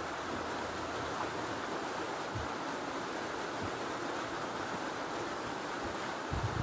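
A steady, even hiss of background noise, with a few faint low thumps.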